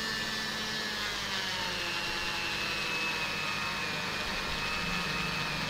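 Small electric rotary tool running steadily with a felt polishing wheel held against a wristwatch to polish it. Its whine drops in pitch about a second in and holds at the lower pitch.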